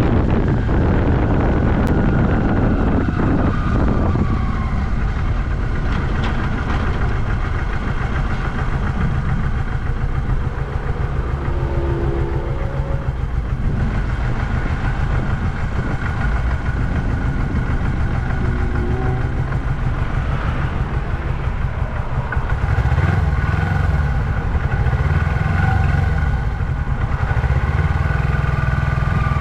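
1982 Yamaha XS400 Maxim's air-cooled parallel-twin engine running under way. It is somewhat quieter through the middle stretch, picks up again in the last third, and its pitch is rising at the very end.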